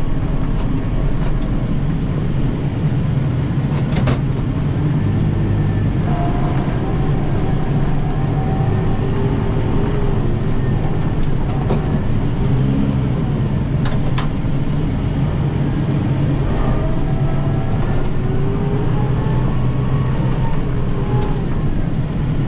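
Kubota M7060 tractor's diesel engine running steadily, with a fainter whine that drifts up and down in pitch and a couple of faint clicks.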